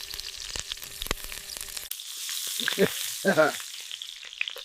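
Beef sizzling and crackling as it fries over a fire, with a fine patter of pops. About two seconds in the sound cuts to a thinner, hissier sizzle, and two short vocal sounds come a half-second apart.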